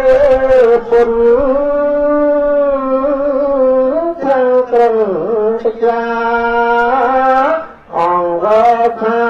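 Buddhist chanting led by a man's voice through a microphone, in long drawn-out notes that waver and slide in pitch, with a brief break for breath just before the end.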